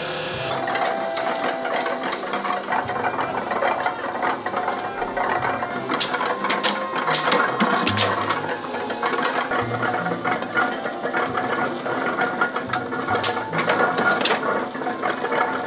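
Factory machinery running steadily, with clusters of sharp metallic clicks about six to eight seconds in and again around thirteen to fourteen seconds, as a plastic-wrapped frying pan is worked against a steel punching die.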